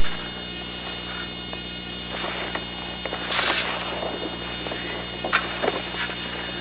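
Steady electrical hum and buzz on the recording, with a brief rustle about three seconds in and a couple of faint clicks after five seconds.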